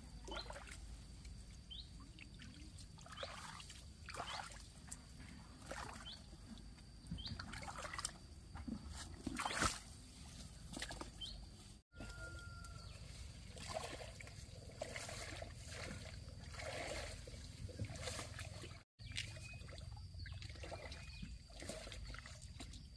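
Shallow water sloshing and trickling in irregular splashes, breaking off abruptly twice.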